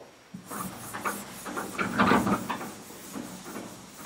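Board eraser wiping a chalkboard in repeated back-and-forth strokes, a dry rubbing hiss that starts about a third of a second in and is loudest midway.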